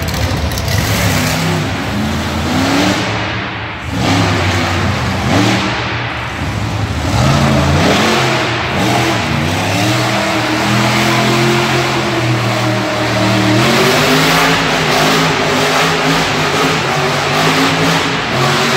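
Monster truck engine revving hard, its pitch climbing and dropping again and again as the truck is driven and wheelied around the arena floor.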